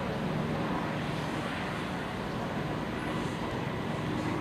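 Electric multiple-unit passenger train moving past close by: a steady rumble of wheels on the rails with a low hum under it.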